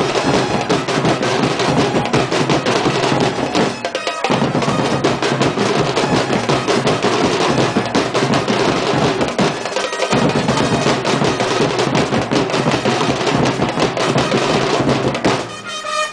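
Loud, fast drum and percussion music, dense rapid strikes with no let-up, as played for tribal street dancing. The low drums drop out briefly about four seconds in and again about ten seconds in.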